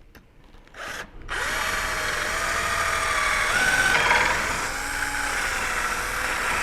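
Electric drill: a short burst just under a second in, then running steadily, its whine wavering in pitch under load as it drills out a rubber anti-roll bar bushing.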